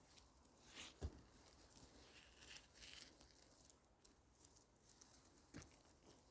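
Near silence with faint rustling and small clicks, broken by a soft thump about a second in and another near the end.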